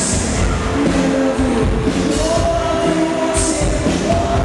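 Live pop-rock band performing: a male lead singer holding long sung notes over electric guitars and a drum kit, loud and continuous.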